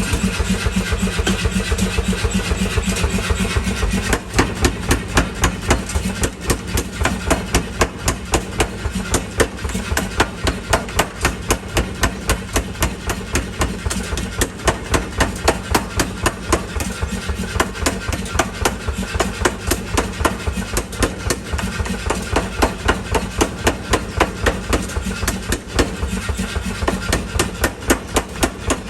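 Engine-driven mechanical power hammer running, its motor droning steadily. From about four seconds in it strikes in a fast, even rhythm, forging the blade.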